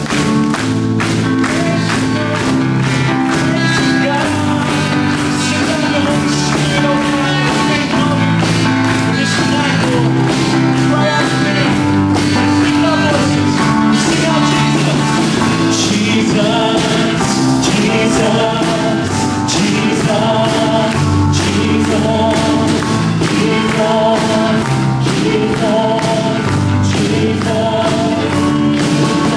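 Live worship band playing a song with a steady drum beat and singing; the melody line grows clearer about halfway through.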